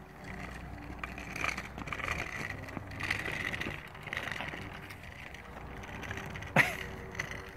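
Small plastic wheels of a child's three-wheeled kick scooter rolling over asphalt in uneven pushes, with one sharp click near the end.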